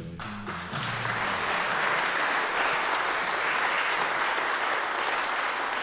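Audience applauding, starting right away and holding steady. The last low notes of the song's music fade out during the first second and a half.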